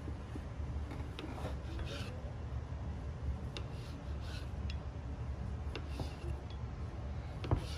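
Kitchen knife sawing through a rolled log of cinnamon-roll dough on a stone countertop: repeated soft rasping strokes over a steady low hum, with a sharp knock near the end.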